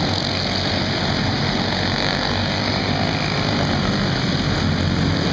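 Engines of several small race cars running laps together on a dirt track: a steady, continuous engine noise with no single sharp event.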